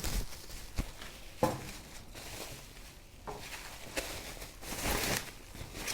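Packaging rustling and light knocks from handling while toaster-oven accessories are unpacked, with a few sharp clicks and a louder stretch of rustling near the end.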